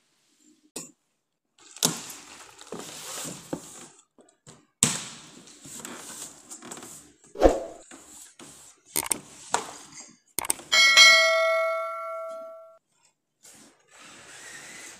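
Cardboard boxes and plastic wrap rustling, with scattered knocks and thuds, as metal-framed dining chairs are unpacked. About eleven seconds in, a tubular metal chair frame clangs and rings out clearly for about two seconds.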